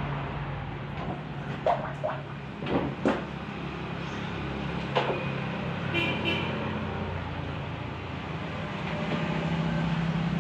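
Several sharp knocks and scrapes of a long-handled scraper pushing flood mud across the floor, over a steady low engine hum.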